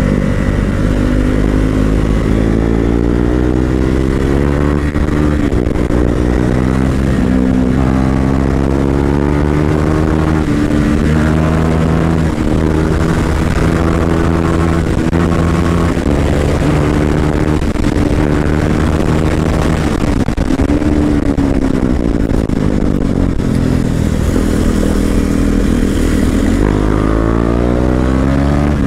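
Motorcycle engine heard up close from the rider's seat while riding, its pitch climbing and dropping again and again as it accelerates, changes gear and eases off, with one marked drop and climb about two-thirds of the way through.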